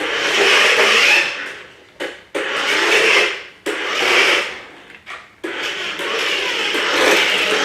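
Remote-control toy car's electric motor and gears whirring as it is driven, in several bursts that cut in and out sharply with the throttle.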